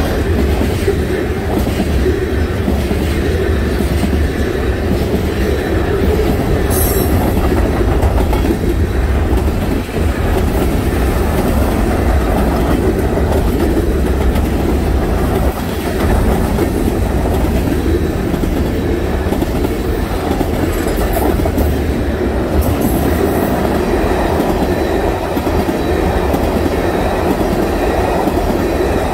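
Freight cars (tank cars and covered hoppers) rolling past steadily, their steel wheels running over the rails.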